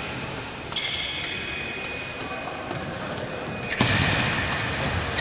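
Echoing sports-hall sounds during a pause in a fencing bout: scattered sharp clicks and taps, a faint high steady tone lasting a few seconds, and a louder burst of noise about four seconds in.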